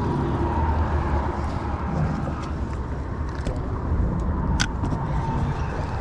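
A steady low rumble, with a single sharp click about four and a half seconds in.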